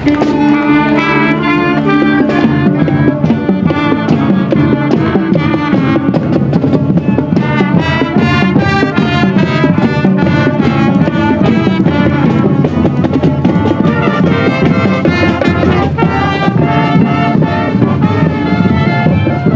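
High school marching band playing, brass section carrying the tune over a steady drum beat.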